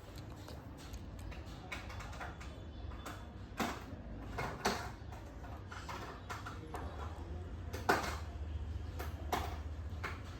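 Small die-cast and plastic toy vehicles being handled: irregular clicks and knocks, the loudest about eight seconds in, over a low steady hum.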